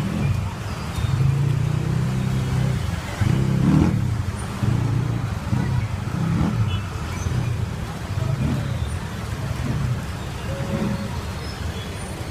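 Street traffic: engines of passing vehicles running steadily, with a few brief swells as vehicles pass or pull away, the strongest about three to four seconds in.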